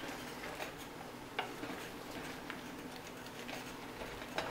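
Wooden spoon stirring chopped vegetables in a stainless steel pot, with a few faint, irregular clicks of the spoon against the pot's side.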